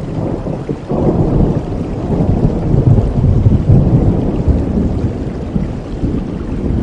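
Steady rain with a long roll of thunder: a low rumble swells up about a second in and keeps rolling, loudest around the middle.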